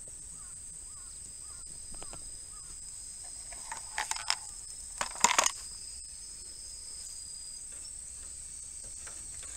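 Steady high-pitched drone of insects, with a few sharp clicks and rattles about four and five seconds in as the compressor's rubber air hose and its connector are handled against the plastic wheel cover.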